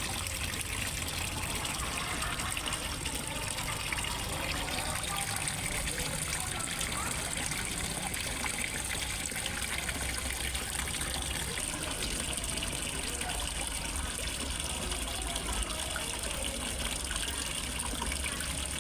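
Water splashing and trickling steadily into a fish pond, as from a small pond waterfall.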